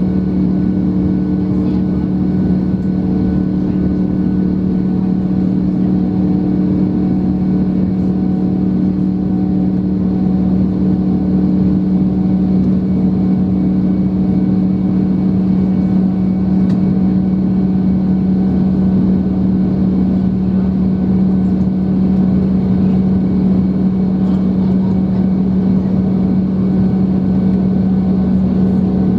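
The Airbus A330-900's Rolls-Royce Trent 7000 turbofan engines at climb power, heard from inside the cabin: a loud, steady drone with a strong low hum and fainter high whines over rushing air.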